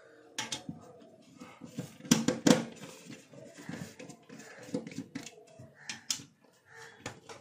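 Scattered clicks and knocks of objects being handled and set down on a workbench, with two louder knocks close together about two seconds in.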